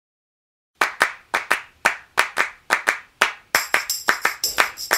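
Opening of a music track: a rhythmic hand-clap beat starts about a second in, at roughly four claps a second, and a tambourine-like jingle joins past the halfway mark.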